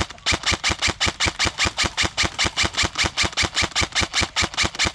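Airsoft gun firing a steady string of shots, about five a second, with sharp, evenly spaced cracks.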